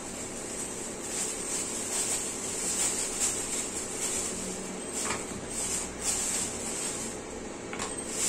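Thin clear plastic bag crinkling and rustling as it is handled and pulled open, irregular, with a few sharper crackles.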